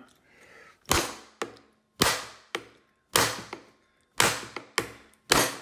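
Wooden mallet hammering a giant lobster claw's shell on a plastic cutting board to crack it open: a series of sharp blows, the heavier ones about a second apart, some followed by a lighter tap.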